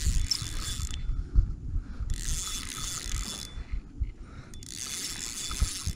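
Spinning reel being cranked to bring in a hooked fish: the reel's gears whir with a faint steady whine, in three spells of about a second each with short pauses between.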